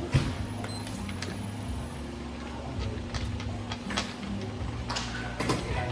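Scattered sharp clacks of a street xiangqi game, pieces set down and the game clock pressed, over a steady low hum. The loudest clack comes just after the start.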